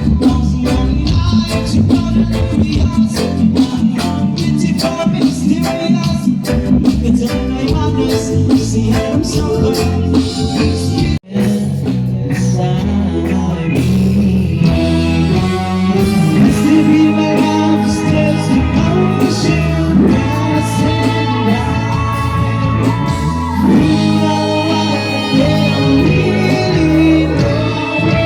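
A live band playing amplified music with a singer. The sound drops out for an instant about eleven seconds in, after which the music carries on smoother and more sustained.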